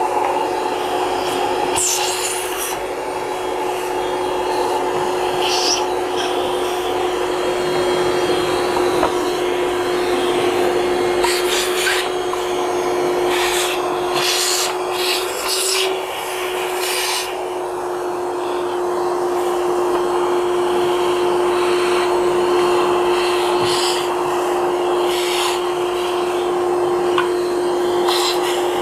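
Vacuum cleaner running steadily with a constant hum, sucking leftover toner out of a photocopier's developer unit. Its nozzle scrapes and rubs against the unit now and then, most often in the middle stretch.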